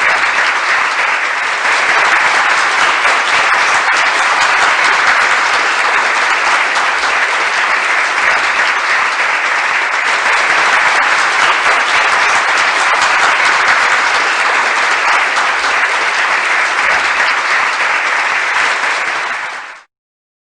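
Steady applause that cuts off suddenly near the end.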